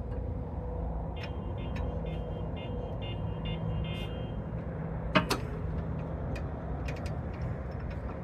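Light clicks and one sharp metallic knock about five seconds in, from tools and a sway bar end link being worked at the suspension. Underneath is a steady low hum.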